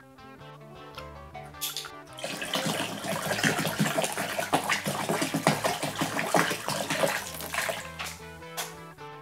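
Water poured from a plastic bottle, splashing into a large glass vessel. The splashing starts about two seconds in, is loud and continuous in the middle, and eases off near the end, over background music.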